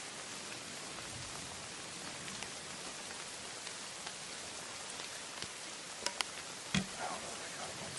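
Steady rain falling on the forest, an even hiss, with two sharp ticks about six seconds in and a louder knock shortly after.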